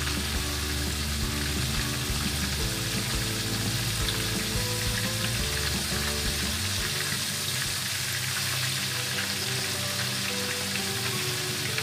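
Flour-coated oyster mushrooms deep-frying in hot oil in a wok, a steady sizzle.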